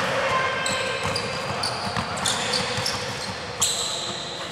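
Indoor futsal play on a sports-hall court: sneakers squeaking on the floor in short high squeals, the ball thudding off feet and floor, with one sharp knock about three and a half seconds in. Players' voices carry in the hall's echo.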